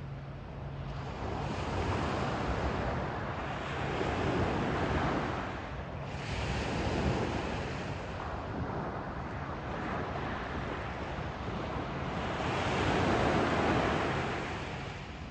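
Small surf waves washing up and draining back over a sandy beach, rising and falling in several swells with the loudest near the end, while wind rumbles on the microphone.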